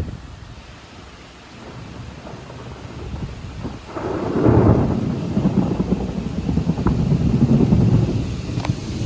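A long roll of thunder: quiet at first, the rumble builds about four seconds in and keeps rolling, loud and crackling.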